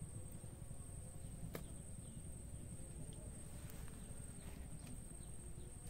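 Quiet outdoor ambience: a low rumble of wind on the microphone under a steady high thin whine, with one sharp click about a second and a half in and a few faint short chirps a little past the middle.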